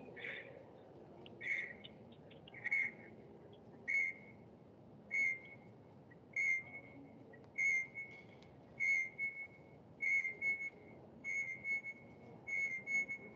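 Electronic beeping: short beeps at one steady high pitch, about one every 1.2 seconds, coming in quick pairs and threes near the end.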